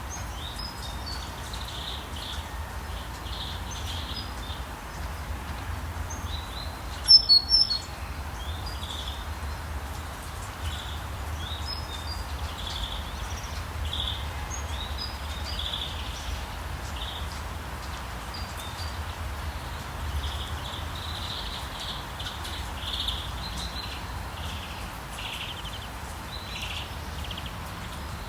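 Small birds chirping and singing in short calls over a steady hiss of rain, with a low steady rumble beneath. A short, loud, sharp burst stands out about seven seconds in.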